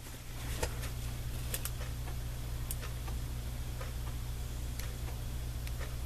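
Steady low hum with a few faint, irregularly spaced light clicks.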